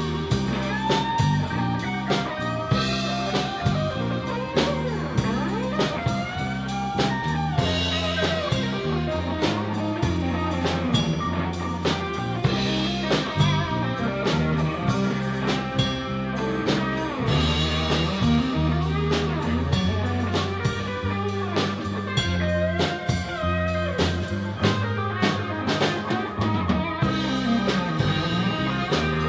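Live blues band playing an instrumental passage: lead guitar with bent notes over a walking bass line and a drum kit.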